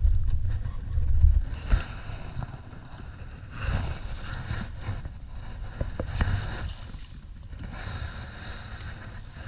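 Wind buffeting the microphone, then several short splashes as a hooked summer flounder thrashes at the surface beside the kayak while being reeled in.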